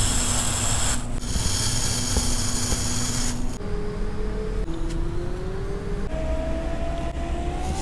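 A thin blade slicing through a block of kinetic sand: a crisp, gritty scraping in two strokes, with a short break about a second in, stopping about three and a half seconds in. After that comes a quieter crunching as the cut sand is pressed and crushed under a tool.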